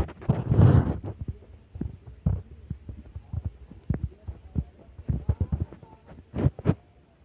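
Irregular low thumps and rumble of wind and handling noise on a handheld microphone, with a brief rushing gust about half a second in.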